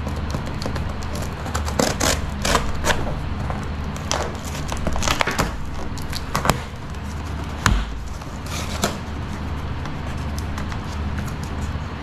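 Packaging being handled while butane gas cylinders are unboxed: an irregular series of short rustles and light knocks over a steady low hum.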